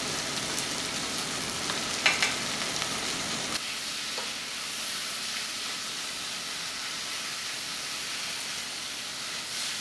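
Onions, tomatoes and wet seasonings sizzling in hot oil in a pot while being stirred with a wooden spatula. A sharp knock comes about two seconds in, and the sizzle settles a little quieter after about three and a half seconds.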